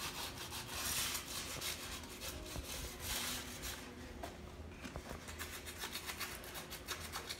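Sandpaper rubbing back and forth on a metal window grill, a run of scratchy strokes that turn quicker and fainter about halfway through.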